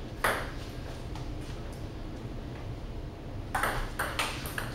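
Table tennis ball: one sharp click just after the start, then a quiet gap. About three and a half seconds in a rally begins, with quick clicks of the celluloid ball on paddles and table a few tenths of a second apart.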